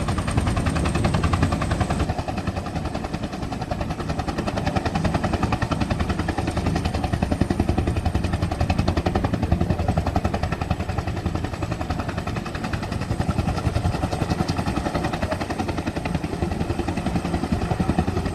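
Helicopter running close by: a rapid, steady chop from the rotor blades, with a thin high turbine whine over it.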